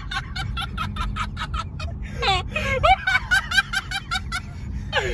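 Hard, rapid laughter, high-pitched and in quick repeated bursts of about five a second, breaking briefly for breath about two seconds in. Underneath it runs the low rumble of the car driving.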